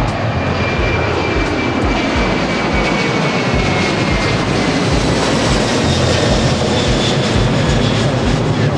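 Jet airliner engines running loud, with a thin whine that slowly falls in pitch over the noise.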